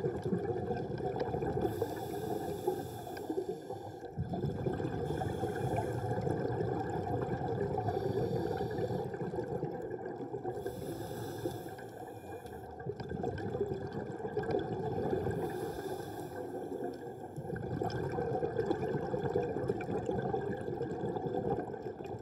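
Underwater ambience picked up through a dive camera housing: a steady low rush of water, with a soft hiss returning about every three to four seconds.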